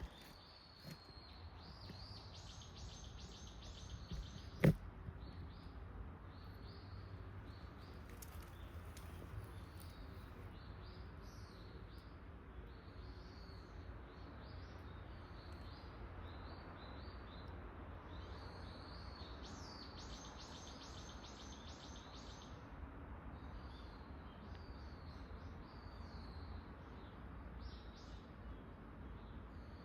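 Wild songbirds calling again and again, with two rapid trilling runs, one early and one about two-thirds through, over a steady low rumble. A single sharp click about five seconds in is the loudest sound.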